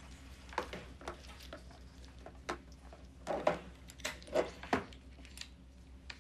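Irregular soft rustles, squelches and light knocks over a steady low hum, with the loudest cluster between about three and a half and five seconds in.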